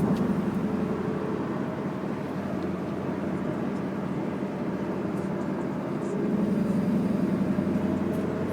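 Camaro on the move: steady road and running noise with a low drone that swells louder, then eases, then swells again near the end. The owner takes the drone for a possibly bad wheel bearing.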